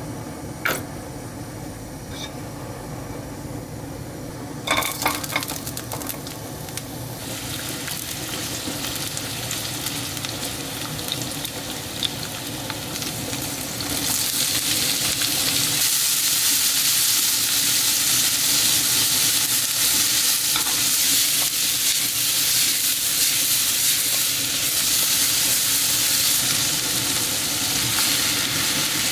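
Oil and garlic sizzling in a nonstick wok on a gas stove, with a few clicks early on as food goes in and the sizzle building. About halfway through, sliced onions are tipped in and the sizzle becomes louder and fuller.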